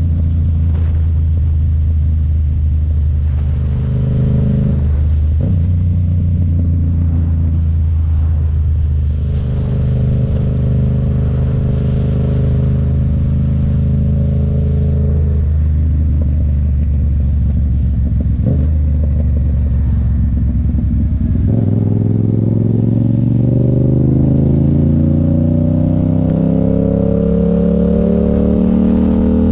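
Yamaha FZ-07's parallel-twin engine running at a steady pitch while riding, with a couple of brief throttle dips. About three-quarters of the way through it accelerates, its pitch climbing steadily.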